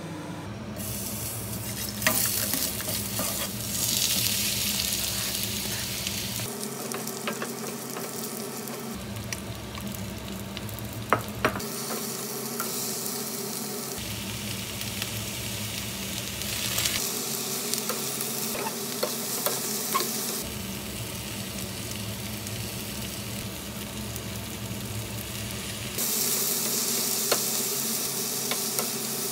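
Korean fish cakes and vegetable strips sizzling in hot oil in a nonstick frying pan while being stir-fried with a wooden spatula, with a few sharp taps of the spatula on the pan. The sizzle jumps and drops in strength several times.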